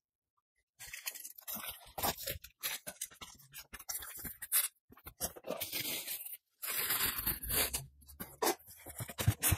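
Cardboard box being unpacked: packing tape torn off and the flaps pulled open, then cardboard and packing rustling and scraping as parts of the trash can are lifted out. It starts after a silent first second and runs as a string of irregular tearing and crackling noises.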